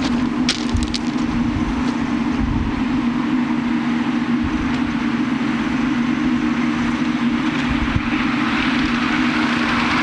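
Miniature ride-on railway locomotive running on its track with a steady hum, a few wheel clicks over rail joints about half a second in, and rising rail and running noise near the end as it approaches.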